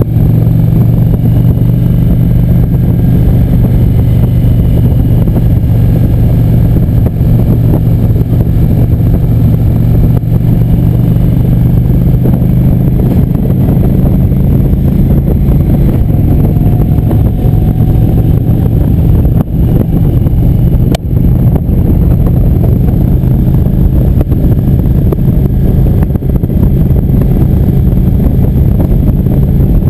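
Cruiser motorcycle engine running steadily while riding at highway speed, a constant low drone. There is one brief click about two-thirds of the way through.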